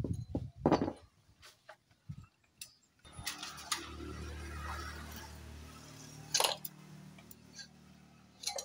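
Metal engine parts and tools knocking and clinking as a motorcycle engine is taken apart, with a few sharp knocks. About three seconds in, a steady low hum starts and slowly fades.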